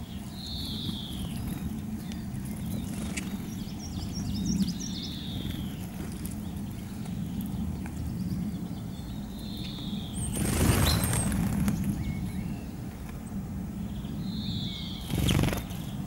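Small songbirds calling: a few short falling chirps scattered through, and a quick high twittering trill about four seconds in. Two brief rushes of noise come about ten and fifteen seconds in, over a steady low rumble.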